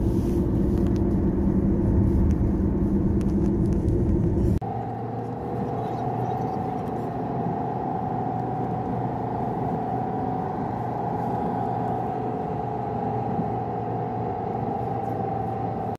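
A car driving at speed, with steady road and tyre rumble. About four and a half seconds in, the sound cuts suddenly to a quieter steady hum heard from inside the car's cabin.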